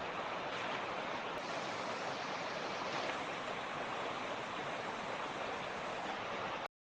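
Mountain creek water rushing steadily over rocks, an even hiss of flowing water, which cuts off suddenly into dead silence near the end.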